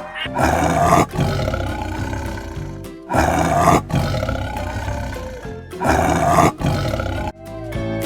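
A big cat roaring three times, about two and a half seconds apart, each call loud and lasting well under a second, over light background music.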